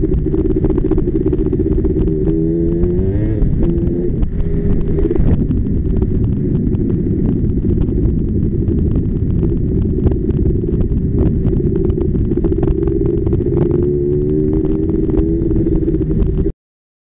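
Racing quad's 250-class engine heard from the rider's helmet, running hard with its pitch rising and falling as the throttle opens and closes through the turns. The sound cuts off suddenly near the end.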